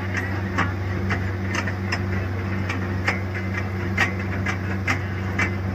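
Borewell drilling rig running: a steady engine drone with irregular sharp knocks and clicks, about one or two a second.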